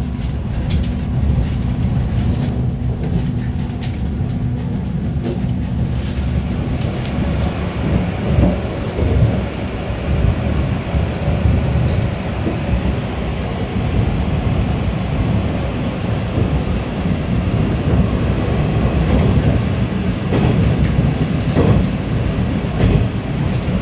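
A passenger train running, heard from inside the carriage: a steady low rumble with wheels clacking now and then over the rail joints.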